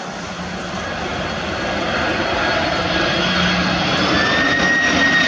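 Boeing 767-2EY tanker's twin turbofan engines on landing approach: a rushing jet noise that grows steadily louder as the aircraft comes closer, with a steady high-pitched engine whine coming in about four seconds in.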